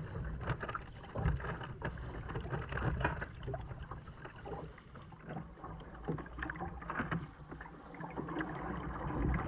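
Kayak paddle strokes dipping and splashing in calm sea water, with water lapping and sloshing against the hull in an uneven run of small splashes.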